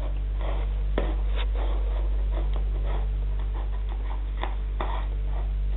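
A steady low electrical hum, with scattered faint clicks and rustles; one sharper click about a second in.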